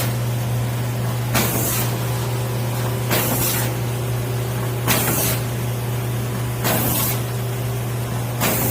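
Automatic KF94 mask packing machine running with a steady low hum, with a short hiss about every two seconds, four or five times.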